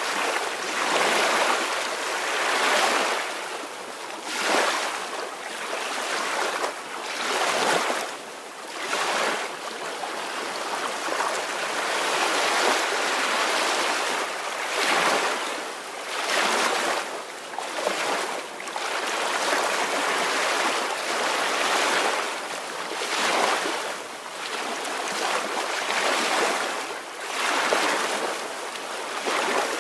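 Small ocean waves washing ashore in a steady rhythm, each wash swelling and fading every second or two.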